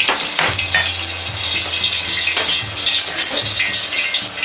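Olive oil heating in an iron wok over a gas burner, hissing and crackling steadily as it gets hot, with the burner's rush underneath.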